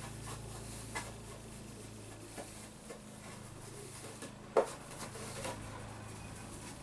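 Cloth rubbing over the ABS plastic case of a GPO 746 telephone as T-cut residue is polished off, with a few light knocks from the case being handled and one sharp knock a little after halfway.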